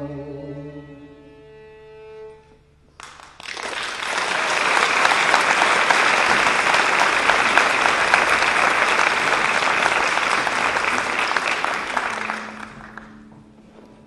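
A held choral chord fades out, then an audience applauds, starting about three seconds in and dying away near the end.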